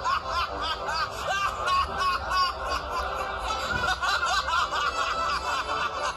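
Quick, high-pitched giggling laughter, several short bursts a second, over background music.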